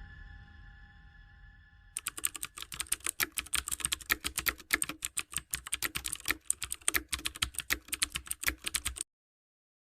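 A held musical tone fading out over the first two seconds, then a fast, uneven run of sharp clicks for about seven seconds, like typing, that cuts off suddenly.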